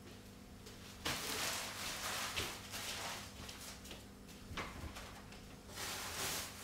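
Household handling noises in a kitchen: footsteps, things moved about on a counter with a few light knocks, and a cupboard door being opened near the end. A faint low hum runs underneath.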